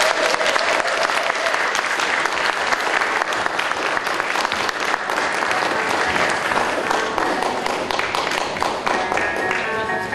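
Audience applauding, a dense patter of many hands clapping, with a long cheer held through the first second or so. Music comes in near the end.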